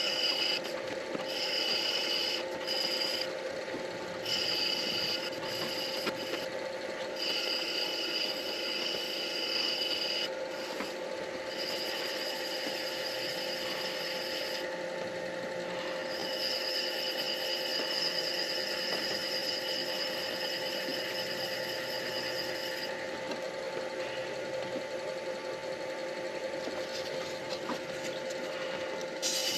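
Midi lathe running steadily with a pen blank spinning, while a sanding pad is pressed against it and lifted off in turns, so a rubbing hiss comes and goes over the steady motor tone.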